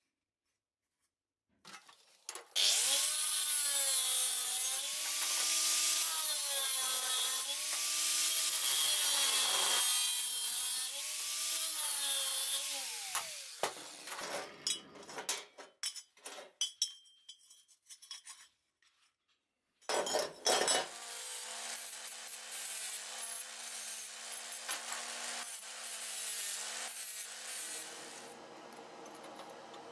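Angle grinder cutting thin-walled square steel tube: a harsh grinding hiss over the motor's whine, the pitch dipping and recovering as the disc bites. A clatter of loose steel pieces follows. Then comes a second, steadier cut that drops away near the end.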